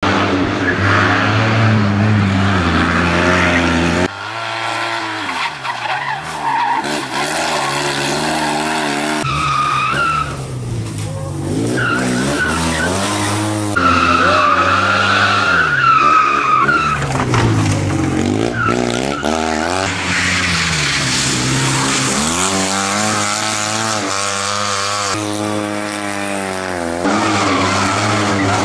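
Fiat 126p rally car's small air-cooled two-cylinder engine revving hard, its pitch climbing and dropping again and again through gear changes, with tyre squeal as the car slides through corners. The sound cuts abruptly from one run to another several times.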